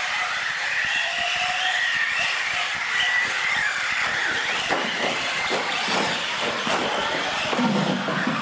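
Radio-controlled UTV trucks racing, their motors whining high and rising and falling in pitch with throttle. From about halfway there is a run of knocks and rattles as the trucks tumble over the course and bump each other.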